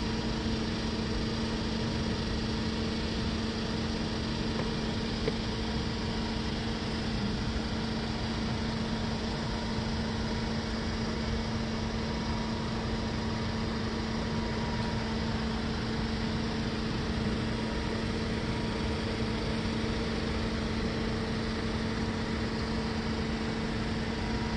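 A steady machine hum with a constant low drone and an even hiss behind it, unchanging throughout.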